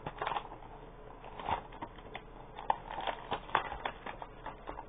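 Toy packaging being handled and opened: irregular crinkling and crackling with a few sharper snaps.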